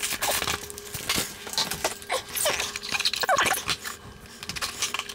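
Plastic mailer bag crinkling and rustling as a cardboard box is pulled out of it, with several short squeaks partway through.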